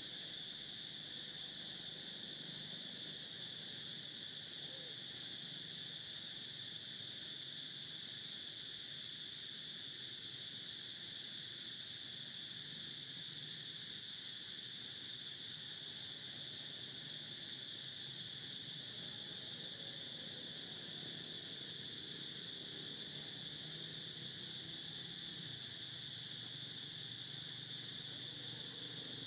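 Steady high-pitched insect drone, an unbroken buzzing chorus that holds level throughout.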